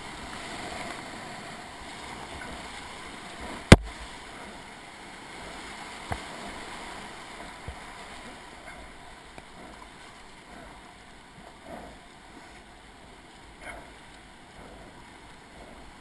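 Whitewater rushing around a kayak running a rapid, with one sharp, loud knock about four seconds in and two lighter knocks a few seconds later. The rush of the water eases in the second half.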